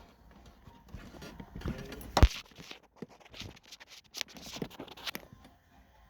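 Hand work on small electrical parts: irregular clicks, scrapes and rustles as wire, spade connectors and a relay are handled, with one sharp click a little over two seconds in.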